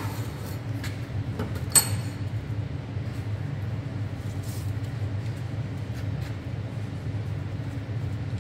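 Steady low mechanical hum, with one sharp metallic click a little under two seconds in.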